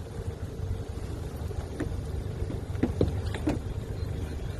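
Small cabin motorboat's engine running at low speed, a steady low rumble, as the boat moves through the harbour. A few short cries sound over it, the loudest about three seconds in.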